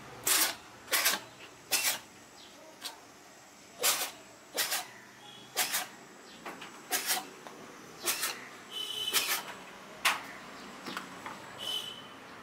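A cat eating rice close to the microphone: sharp wet smacks and clicks from its mouth, about one a second, with a couple of brief high squeaks near the end.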